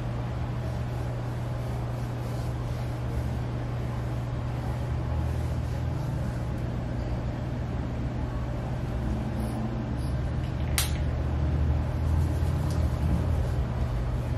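Steady low mechanical hum of a room air-conditioning unit, growing a little louder in the second half. A single sharp click about eleven seconds in.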